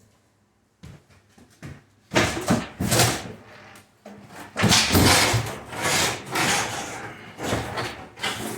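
A few light wooden knocks, then from about two seconds in loud, irregular scraping and knocking of wood, as cabinet parts are handled and dragged.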